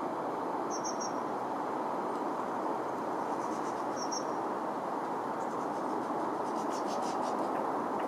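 Woodland background: a steady rushing noise, with a few faint, high-pitched small-bird chirps about a second in and again about four seconds in, and faint rapid high ticking near the end.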